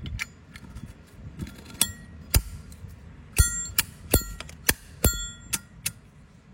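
Handled metal watch and bracelet clinking: about eight sharp clicks, several ringing briefly like small metal parts struck together.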